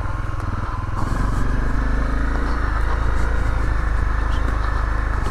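Honda CRF250L's single-cylinder four-stroke engine running steadily while the dual-sport motorcycle is ridden along a dirt trail.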